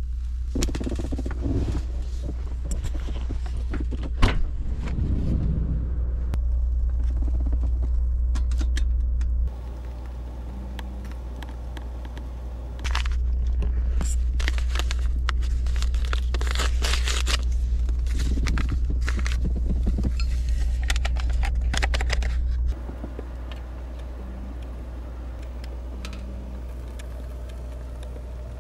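Handling sounds of making hot cocoa on a small camp stove: clicks, knocks and scraping, with a paper cocoa packet rustling in the middle stretch. Underneath runs a steady low hum that cuts off abruptly about ten seconds in, comes back a few seconds later and cuts off again near the end.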